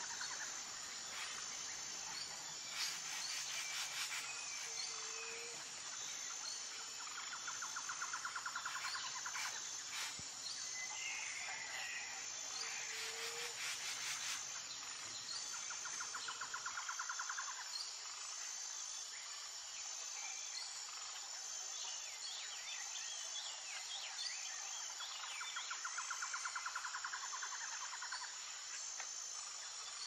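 Forest ambience: scattered bird chirps and calls over a steady high insect buzz, with a fast pulsed trill that comes back every eight or nine seconds.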